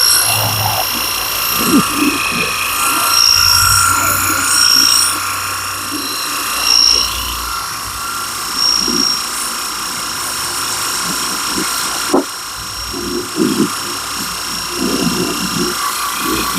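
Battery-powered portable pressure washer running on a garden-hose feed, its small electric pump whining steadily under the hiss of the water spray.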